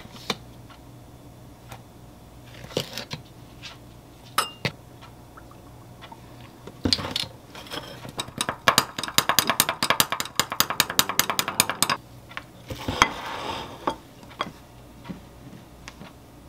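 A spoon stirring a protein shake in a glass, clinking quickly and evenly against the sides, about eight to nine clinks a second, for roughly four seconds past the middle. Scattered knocks and taps of the powder tub and glass come before and after.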